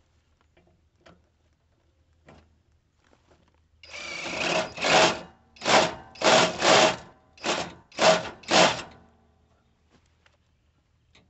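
Cordless impact wrench hammering in a run of about eight short bursts, the first the longest, as it tightens a mower blade's bolt down onto the spindle. A few light clicks of the tool being fitted come before the bursts start, about four seconds in.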